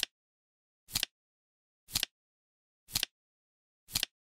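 Flip-clock flap sound effect: a short double clack once a second, each time the seconds card flips over.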